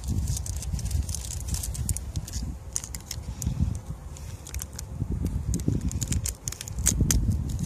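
Strong wind buffeting the microphone in gusts, with scattered sharp clicks and crackles over it, thickest near the end.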